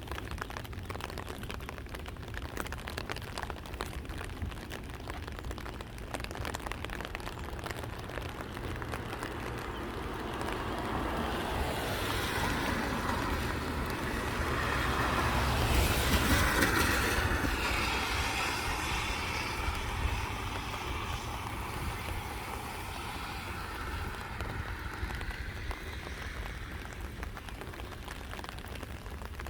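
A vehicle passing by: a rushing noise builds over several seconds, peaks about halfway through, then fades away, over a steady low rumble.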